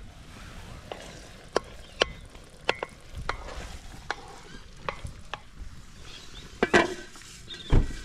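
A white plastic spoon stirring a tomato, sausage and egg stew in a large enamel pan over a campfire, with about ten sharp taps of the spoon against the pan. Near the end, louder clatters as a lid is brought onto the pan.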